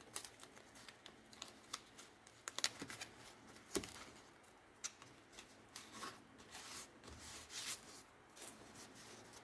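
Faint, scattered rustles and clicks of a cardboard template taped with blue painter's tape being handled and pressed against a roll-cage bar, with one sharper tap a little under four seconds in.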